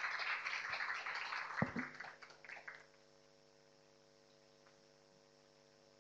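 Audience applauding, with one sharp knock partway through; the applause dies away about three seconds in, leaving a faint steady electrical hum.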